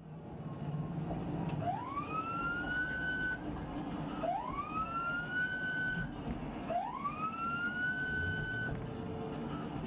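Police car siren sounding three rising wails, each climbing and then cutting off, about two and a half seconds apart, over steady engine and road noise from inside the squad car.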